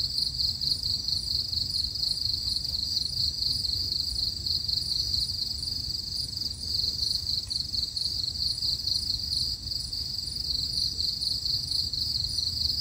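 Insects trilling in a steady high chorus with a fine rapid pulse, over a low rumble.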